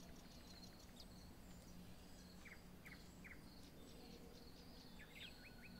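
Faint wild ambience: a bird calling in short repeated notes, three in the middle and a quicker run of them near the end, with faint insect chirping over a steady low hum.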